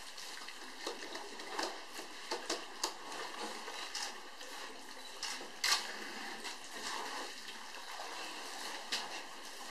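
Elephants drinking at a waterhole: water splashing and dripping from their trunks, many short splashes over a steady hiss, the sharpest one a little past halfway.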